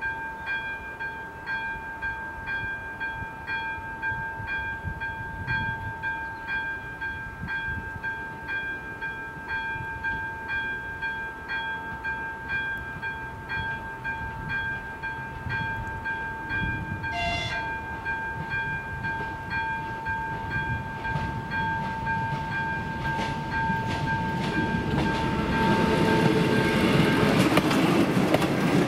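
Railway level-crossing warning bell ringing a steady electronic tone with repeating strikes while the crossing is closed. About halfway through, the approaching railcar sounds a short horn blast. Near the end the railcar's engine and wheel noise grow loud as it reaches the crossing, and the bell stops.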